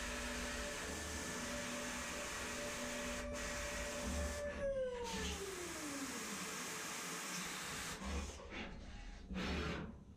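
5-axis CNC milling machine spindle running with a steady whine over a hiss of cutting and chip extraction. About four and a half seconds in, the whine glides down as the spindle slows, and a few short bursts of machine noise follow near the end.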